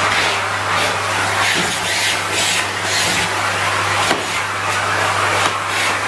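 Vacuum cleaner running with a steady motor hum, its nozzle on a metal wand being moved over a plastic ride-on toy car. The suction hiss swells and fades as the nozzle passes over and off the surfaces.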